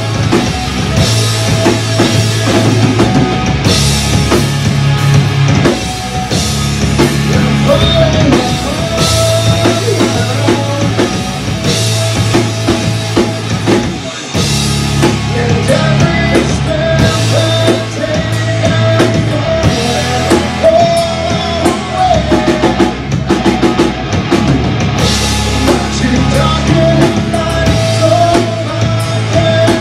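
Live hard rock band playing a heavy riff: distorted electric guitar, bass guitar and drum kit, with a brief break about halfway through.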